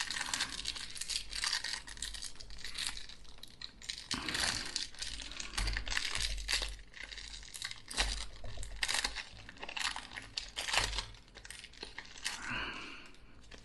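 Foil wrapper of a Pokémon trading-card booster pack crinkling and tearing as it is worked open by hand, an irregular run of crackles, with the cards inside being handled.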